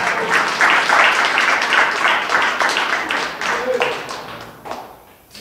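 Audience applauding, many hands clapping at once, the applause dying away near the end.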